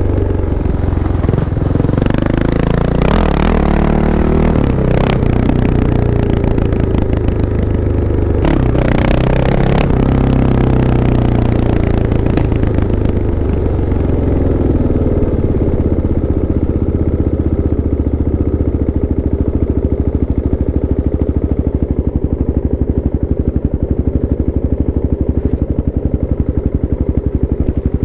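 Kawasaki KLX650's single-cylinder four-stroke engine, revved up and down several times, then settling to a steady idle about halfway through.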